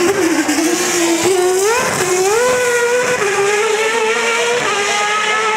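Superleague Formula race car's V12 engine accelerating hard through the gears. The note climbs, then drops back at each upshift.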